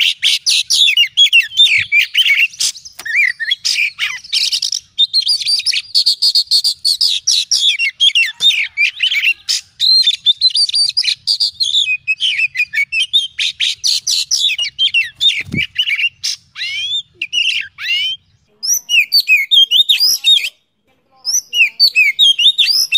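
Oriental magpie-robin singing a long, varied song of fast whistled phrases mixed with sharp clicking notes, breaking off briefly twice near the end.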